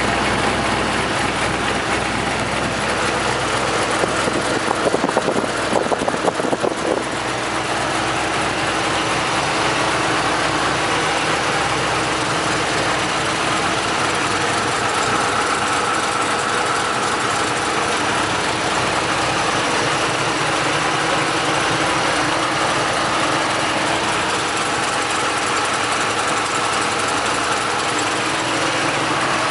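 Vehicle engine idling steadily, with a louder patch of rapid, uneven ticking about four seconds in that lasts a few seconds; the owner questions whether it is an exhaust leak.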